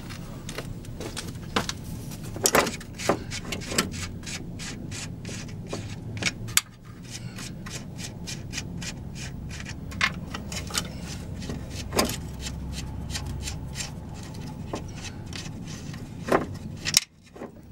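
Front strut of a 2008 Hyundai Sonata being worked loose by hand in the wheel well, with its three upper mount nuts off. Rubbing and scraping with many small clicks, and a few louder knocks.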